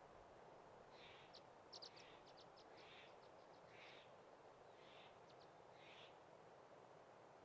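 Faint, distant bird calls: a soft high call repeated about once a second. In the first half it is joined by a quick run of sharp, very high chips, with a few more chips later.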